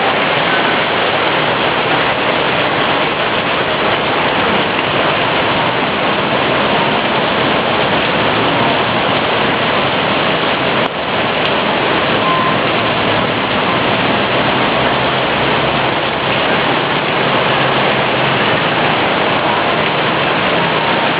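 Steady, loud rushing hiss of water, with a brief dip about halfway through.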